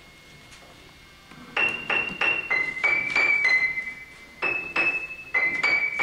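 Piano played high up the keyboard: a simple tune of single notes. It starts about one and a half seconds in, with a quick run of notes, a short pause, then a second phrase.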